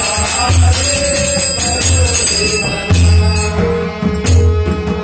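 Devotional bhajan accompaniment: a pakhawaj barrel drum beats deep strokes about every second and a quarter while small hand cymbals (taal) clash and ring continuously over it, with a held tone underneath in the second half.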